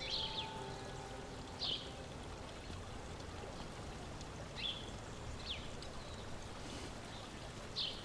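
Quiet garden ambience: a steady faint hiss with about five short, high bird chirps spread through, as the last held notes of background music fade in the first second.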